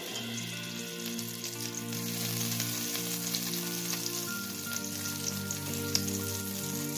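Desi ghee melting and sizzling in a hot steel kadai, pushed around with a wooden spatula. Soft background music with held notes plays underneath.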